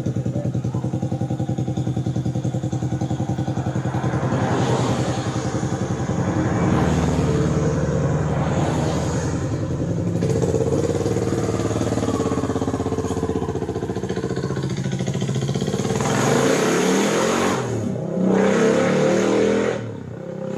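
Kawasaki KLR 650 single-cylinder motorcycle engine running and being revved repeatedly. It is loudest in the last few seconds, where the pitch rises and falls with the throttle.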